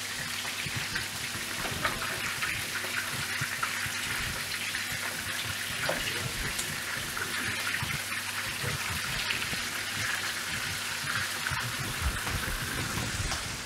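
Smoked pork ribs sizzling steadily in a hot frying pan as they are turned, with a few light knocks of the utensil against the pan.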